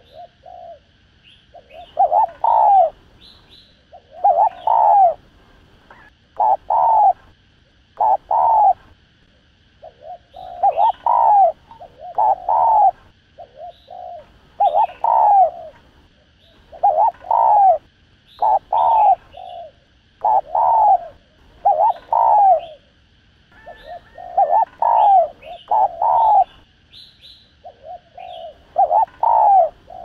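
Spotted dove cooing over and over: short phrases of two or three low, rounded coos, repeated every couple of seconds.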